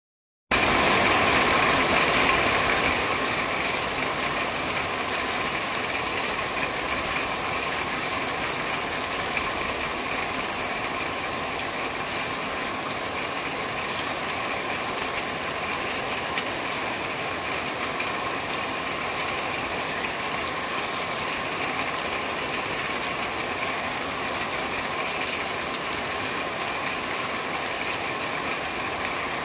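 Steady rain falling on a corrugated metal roof: a dense, even patter of drops on the sheet metal, a little louder for the first few seconds.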